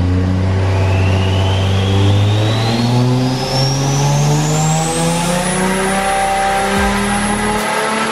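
Toyota JZX100 Mark II's single-turbo 1JZ straight-six on a dyno pull, revs climbing with a rising turbo whistle that levels off at a high pitch about five seconds in.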